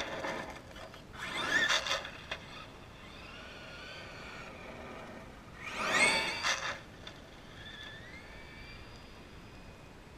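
Traxxas E-Revo RC truck with a Mamba Monster brushless motor whining as it speeds up and runs close past, the whine rising then falling in pitch. It peaks twice, about a second and a half in and again around six seconds in, with fainter whines between and near the end.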